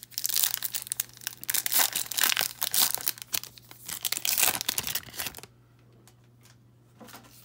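Foil wrapper of a 2019 Panini Prizm football card pack being torn open and crinkled by hand, a rapid crackling rustle that stops about five and a half seconds in.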